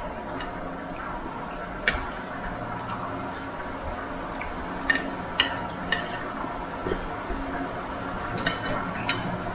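Metal utensils clinking against dishes: seven or eight sharp, separate clinks at irregular intervals over a steady background hiss.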